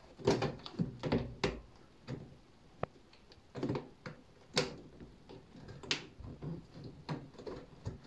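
Hands working the rubber door seal of a front-loading washing machine and its outer wire spring clamp into place: irregular short rubbing and scraping strokes, with a sharp click about three seconds in.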